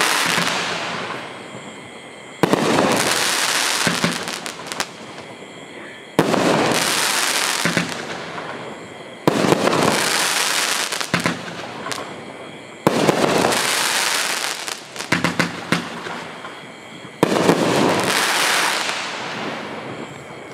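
Hot Fireworks 'Golden Boot' consumer fireworks cake firing aerial shots about every three to four seconds, five in all: each a sudden bang that fades into a long fizzing hiss, several followed by bursts of crackling pops.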